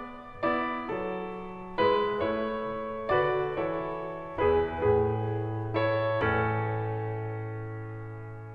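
Background piano music: slow struck chords a second or so apart, the last one held and fading away.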